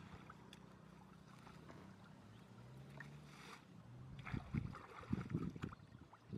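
Shallow muddy water sloshing and splashing as hands drag and lift a woven bamboo fish trap, quiet at first and becoming louder and more frequent from about four seconds in.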